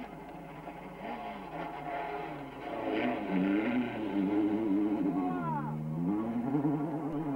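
Renault Mégane rally car's engine revving hard on gravel, its pitch climbing and dropping as it goes through the gears and lifts off. It gets louder about three seconds in, as the car comes close.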